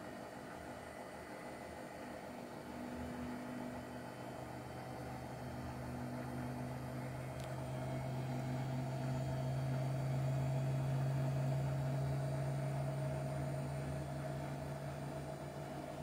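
Hotpoint-Ariston AQ83D washing machine spinning at 800 rpm: a steady motor-and-drum hum with a low tone, growing louder toward the middle and easing slightly near the end.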